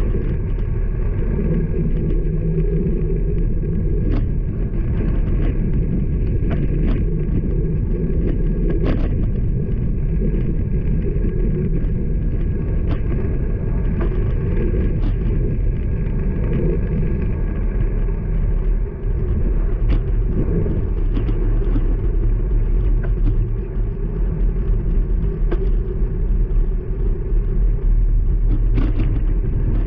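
Steady low wind rumble and road noise while riding a road bike along a road with traffic, with occasional sharp clicks and knocks.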